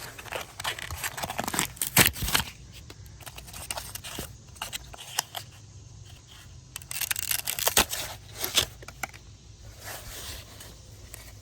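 An old speaker being cut and torn out of its plastic snap-in housing: irregular sharp clicks and cracks in several bursts.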